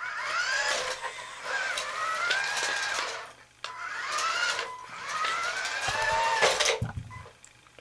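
Remote-control toy Jeep's small electric motor and plastic gearbox whining as it drives, in two runs with a short break about three and a half seconds in, the pitch rising as it speeds up each time.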